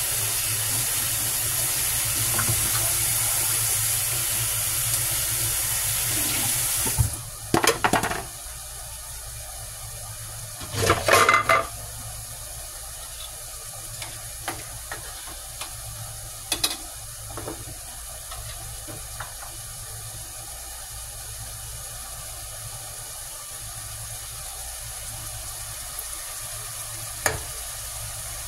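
Water running hard from a kitchen tap for about seven seconds, then shut off abruptly, followed by a few clatters of pots or utensils, the loudest about eleven seconds in, over a low steady hum.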